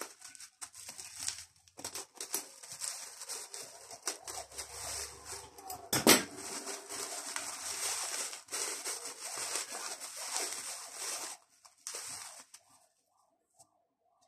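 Thin plastic bag crinkling and rustling as it is worked off a small potted plant cutting, with a sharper crackle about six seconds in; the rustling stops shortly before the end.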